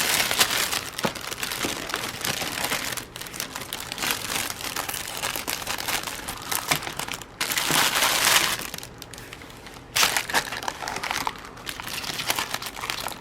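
Crinkling and rustling of a paint-by-numbers kit's packaging being handled, with the loudest burst about eight seconds in.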